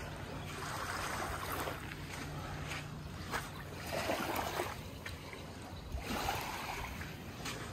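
Water washing and splashing in irregular surges, over a faint steady low hum.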